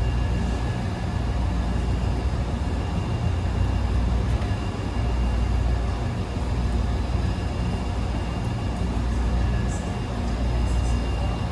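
Wascomat Senior W125 35-pound commercial washing machine running: a steady low rumble with a faint, even whine held above it.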